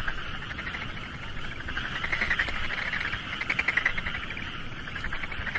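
A chorus of calling animals: a high, rapid pulsing trill that swells and fades in waves.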